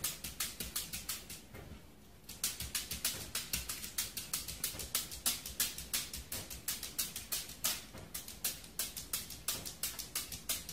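Small dog at a mirror making a fast run of sharp clicks, about four or five a second, with a brief pause about two seconds in.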